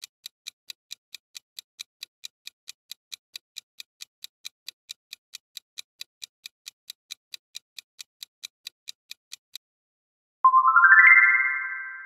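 Countdown timer sound effect: an even clock-like ticking, about four ticks a second, that stops shortly before the end. It is followed by a loud, bright chime that glides upward and rings out as the answer is revealed.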